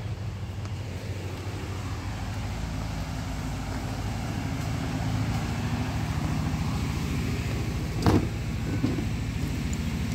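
Water pump at a well running with a steady low hum, growing louder partway through. A single knock about eight seconds in.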